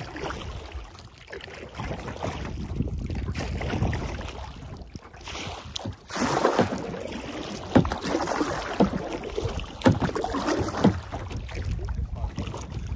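Canoe being paddled: paddle splashes in the river water, with wind rumbling on the microphone. From about six seconds in, the splashes come sharper and louder.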